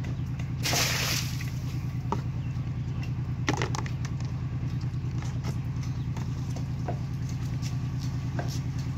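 A small engine running steadily with an even, fast pulse. There is a brief burst of hissing noise about a second in, and a few sharp clicks about three and a half seconds in.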